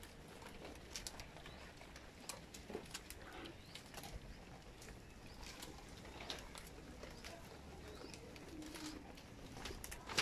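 Goats feeding on fresh green fodder stalks: scattered crisp snaps and rustles as they bite and tear at the stems.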